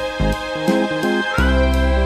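Instrumental background music with changing bass notes and a steady beat of about three strokes a second.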